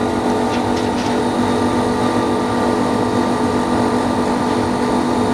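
Steady electric motor hum with a low drone and several steady overtones: the OCA film laminating machine's built-in vacuum pump running. A few faint clicks are heard in the first second.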